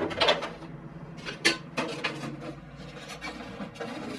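Thin aluminum sheet-metal parts being handled and fitted against the wing structure: a few light metallic knocks and clicks, the sharpest about a second and a half in, then smaller rubbing and clicking.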